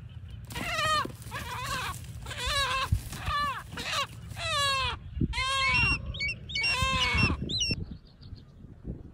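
A chicken squawking loudly in distress as a hawk-eagle catches it: about seven calls in a row, each falling in pitch, ending in a few short, high notes.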